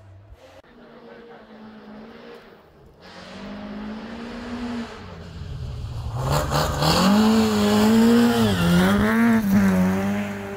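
Rally car engine approaching and then passing close and loud, its revs rising and dipping several times as it goes by.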